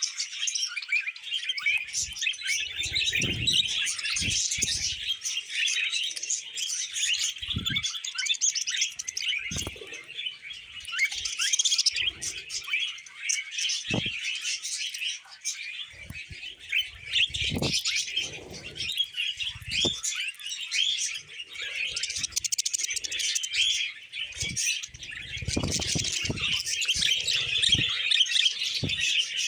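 Several budgerigars warbling and chirping in a continuous dense chatter, with scattered soft low thuds and knocks from the birds moving about.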